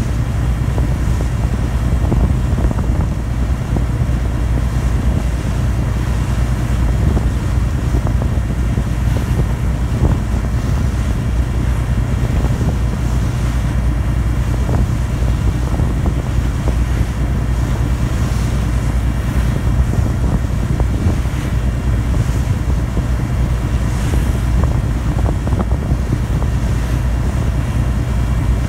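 Passenger ferry under way, its engine droning steadily at cruising speed, with a continuous rush of wind and water noise.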